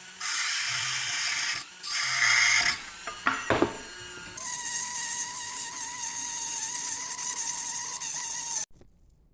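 A power tool cutting the cast aluminium ornament away from its runners and gate. There are two short runs, then a longer steady run with a constant whine that cuts off sharply near the end.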